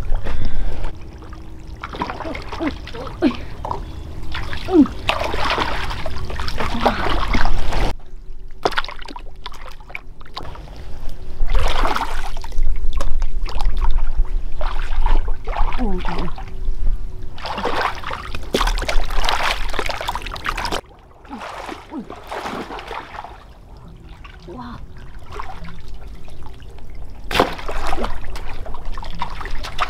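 Water splashing and trickling in uneven bursts, broken by abrupt changes in the sound about eight seconds in and again past twenty seconds.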